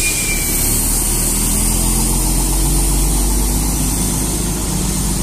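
Mercedes-Benz OC 500 RF 2542 double-decker coach's rear-mounted diesel engine running steadily as the bus pulls away, with a continuous high hiss over the low engine note.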